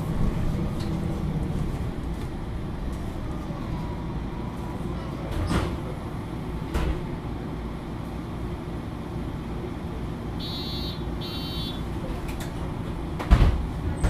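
MAN Lions City A21 (NL323) city bus standing at a stop with its engine idling steadily. Well into the stretch come two short electronic beeps close together, and a couple of seconds later a loud thump.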